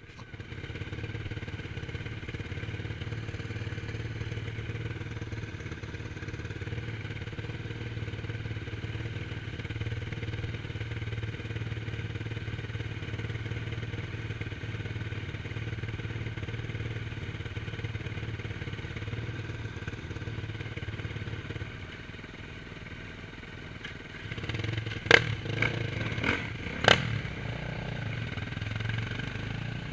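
An engine running steadily at an even pitch, which eases off slightly late on, followed by several sharp cracks in quick succession near the end.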